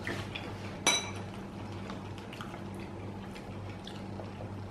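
Quiet eating sounds at a table: scattered small clicks of someone eating a bowl of ramen, with one ringing clink of a utensil against a ceramic bowl about a second in, over a steady low hum.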